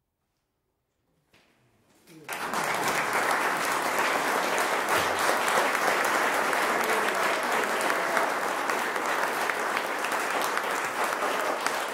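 Near silence, then an audience starts applauding about two seconds in and keeps clapping steadily.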